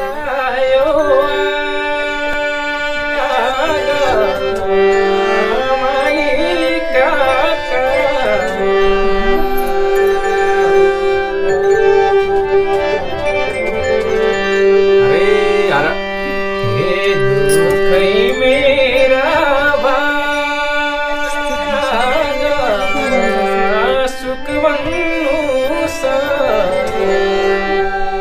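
Nepali Deuda folk song sung in the slow thadi bhaka style: a voice singing a wavering, ornamented melody over a steady drone, accompanied by a Nepali sarangi and a bamboo flute.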